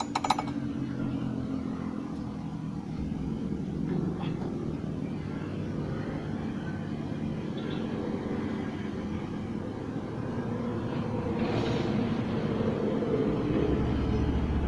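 Steady drone of a running engine, with a few sharp metallic clinks at the start as a metal oil funnel is lifted out of the filler neck.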